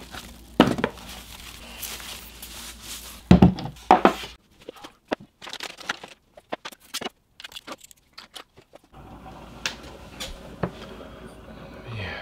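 Plastic wrapping and bubble wrap rustling and crinkling as a cardboard box is unpacked, with a few sharp knocks in the first few seconds. After that, only sparse light clicks of handling.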